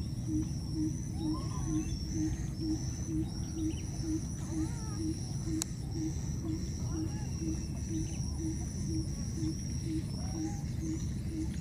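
Outdoor wildlife ambience: a steady low rumble under a high wavering insect drone, with a low call pulsing about three times a second. Scattered short rising-and-falling squeaky calls come through, and there is one sharp click about halfway.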